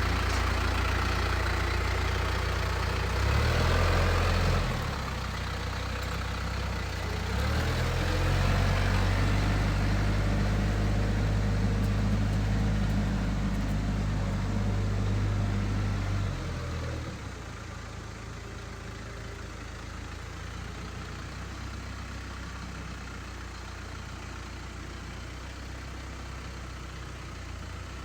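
Tractor engine running, with its note shifting and growing louder for stretches in the first half. About two-thirds of the way through it drops back to a quieter, steady idle.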